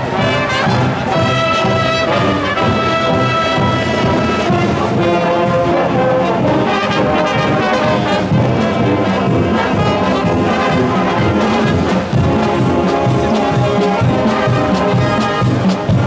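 University of South Dakota marching band playing a tune on the march: trumpets, trombones, saxophones and sousaphones over a steady drum beat.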